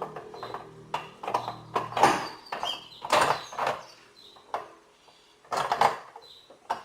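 Irregular knocks, clinks and scrapes of metal starter-motor parts being handled and fitted together on a workbench, the loudest around two, three and six seconds in.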